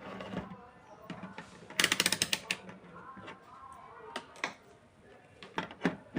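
Workbench handling noise: scattered clicks and knocks, with a quick rattling run of about a dozen sharp clicks about two seconds in.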